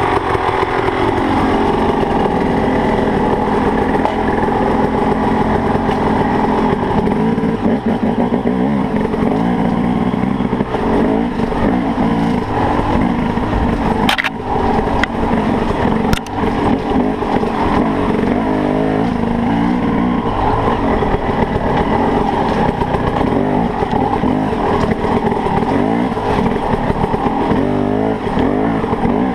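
KTM dirt bike engine running under the rider, its revs rising and falling as the throttle is worked, with two sharp knocks about halfway through.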